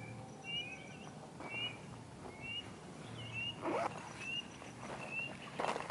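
A bird chirping over and over, short high rising notes, often in pairs, about once a second. Two soft scuffs come in the second half, one near the middle and one near the end.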